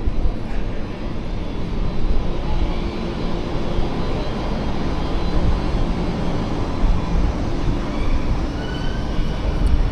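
Steady low engine rumble close by, with a constant hum.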